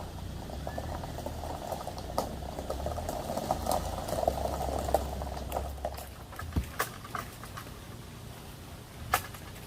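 Camper van rolling slowly with its tyres crunching and crackling on gravel, over a low engine hum that stops about six seconds in, with scattered sharp clicks.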